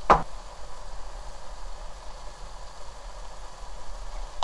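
Acanthopanax shoots frying in a wok, a steady sizzle, with a brief knock at the very start.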